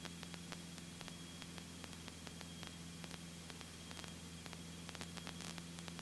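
Faint steady hiss and crackling static over a low, even hum: the Mooney M20C's engine drone as it comes through a cockpit intercom or headset audio feed, with scattered small clicks.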